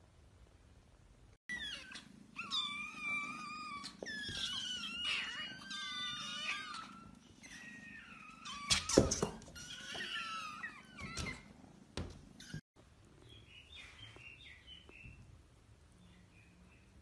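A group of kittens meowing together, many high overlapping cries one after another, with a few sharp knocks, the loudest about nine seconds in. After an abrupt stop, faint high squeaks follow.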